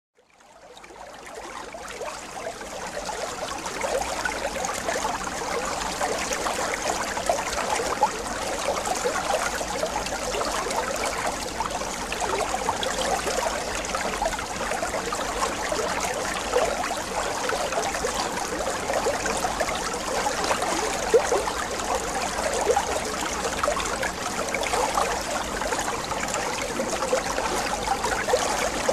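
Steady trickling, bubbling water, fading in over the first couple of seconds and then running evenly.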